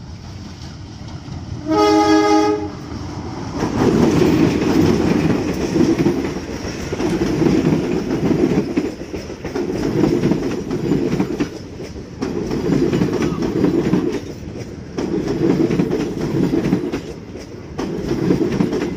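Diesel-hauled passenger train: the locomotive's horn sounds once for about a second. Then the coaches pass close by with a rhythmic clickety-clack of wheels over the rail joints, swelling roughly every two seconds as each coach goes by.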